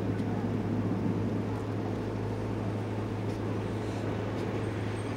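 A steady low mechanical hum with a rumble underneath, holding even throughout.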